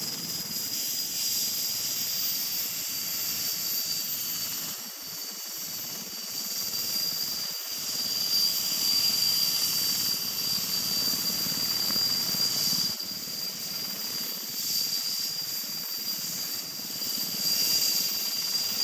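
Erickson S-64 Aircrane heavy-lift helicopter running: a steady high turbine whine over a rushing noise that swells and eases every few seconds.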